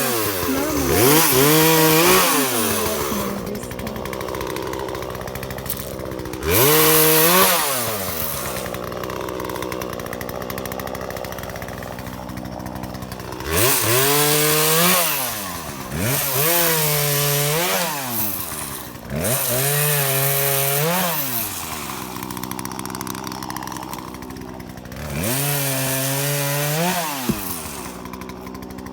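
Chainsaw revving up to full speed in about seven bursts, as when cutting through wood, and dropping back toward idle between them.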